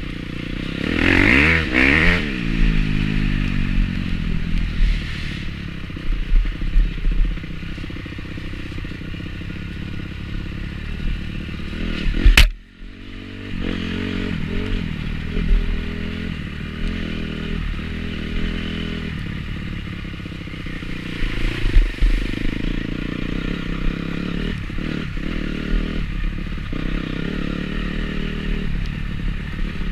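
Motocross dirt bike engine on the trail, its revs rising and falling in repeated bursts, with the bike rattling and clattering over rough ground. There is a single sharp click about twelve seconds in.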